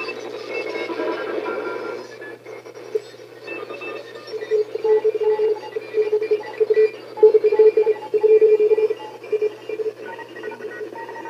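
An unidentified data signal on the 21 MHz shortwave band, heard through a radio receiver's speaker: rapid, choppy beeps at several pitches over static hiss. The beeping is loudest and densest in the middle stretch.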